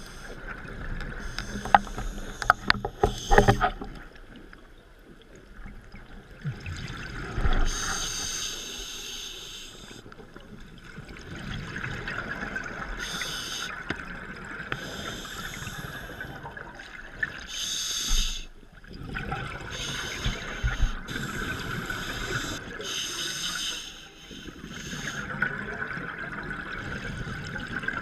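Scuba diver breathing through a regulator underwater: a hissing inhalation every few seconds alternating with bubbling exhalations. A quick run of sharp clicks sounds in the first few seconds.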